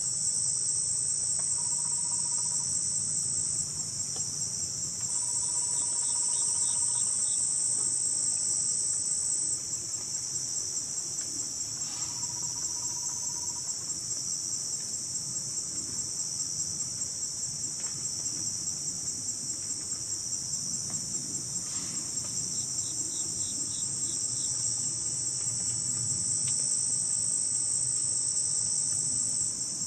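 Steady, dense chorus of insects chirring in a high band, with a fast pulsing texture.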